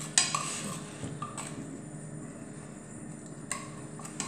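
Metal spoon scraping and clinking against a terracotta baking dish as it spreads an oily chopped garlic, onion and parsley mixture over the bottom. Sharp clinks come right at the start and about three and a half seconds in, with softer scraping between.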